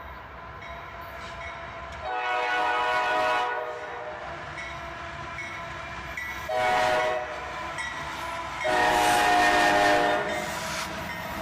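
Diesel locomotive's multi-chime air horn sounding three blasts, long, short and long, over the steady rumble of the approaching train.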